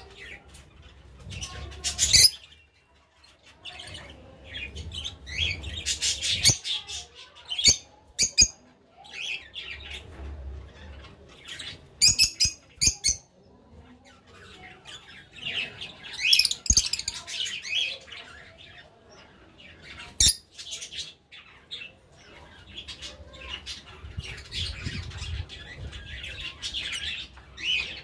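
Fischer's lovebirds chattering in bursts of shrill chirps and squawks, with several sharp, piercing single cries among them.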